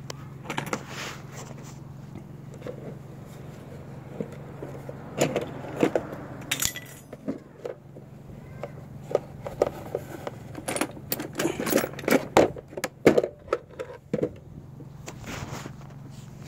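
Clicks, taps and small rattles of hard plastic and metal parts of a car fuel pump module being handled and prised apart, coming in clusters, over a steady low hum.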